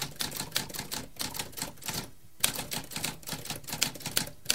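Typewriter keys clacking in a quick run, about four or five strokes a second, with a short pause a little before halfway.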